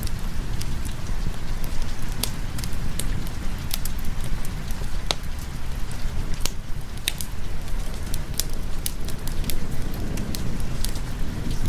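Wood fire crackling with scattered sharp pops over steady rain and a constant low rumble.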